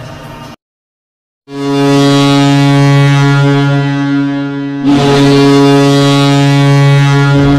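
NHL arena goal horn, a ship-style air horn, sounding a loud, low, steady blast from about a second and a half in, dipping briefly near five seconds and blasting again. It signals a goal scored.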